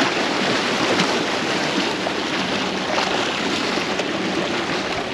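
Small waves washing and splashing steadily against the boulders of a rock jetty.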